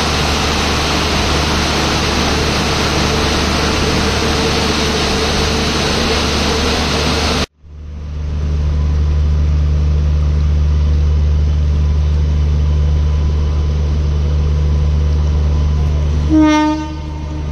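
Heavy rain pouring down on a station platform and its roof. After a sudden cut, a WAP-5 electric locomotive runs with a steady low hum and sounds one short horn blast about a second before the end.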